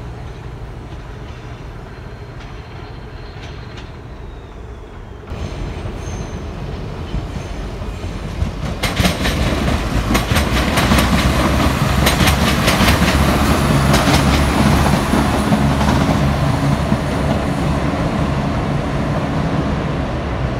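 A passing train: a quiet steady rumble, then, after about five seconds, a Class 170 Turbostar diesel multiple unit running past close by. Its engines drone, and its wheels make a fast run of clicks over the rail joints and pointwork, loudest in the middle and then easing off.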